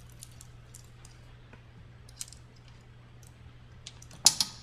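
Light metallic clicks and clinks of a stepper's step chain and spring being handled and hooked onto the drive, with a burst of sharper, louder clicks near the end. A faint steady low hum runs underneath.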